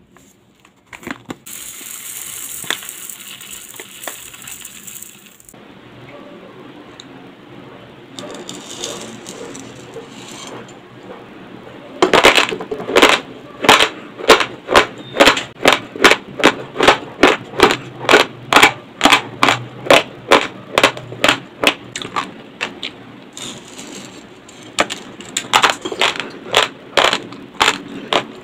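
Dry, uncooked basmati rice poured from its packet into a wooden bowl with a hissing rush of grains. About midway through comes a long run of loud, crisp crunches, about two or three a second, as a mouthful of raw rice grains is chewed; the crunching pauses briefly near the end, then starts again.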